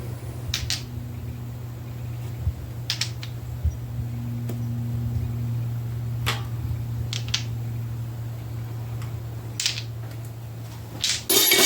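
Scattered sharp metal clicks, a few seconds apart, as steel roller lifters are pulled from a small block Chevy 350's lifter bores and handled, with a louder clatter near the end. A steady low hum runs underneath.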